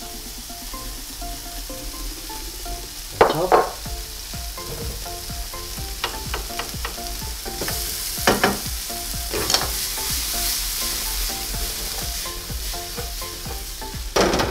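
Chopped red onion sizzling in hot oil in a frying pan while being stirred with a wooden spoon. The spoon knocks and scrapes against the pan several times, and the sizzle grows louder about halfway through.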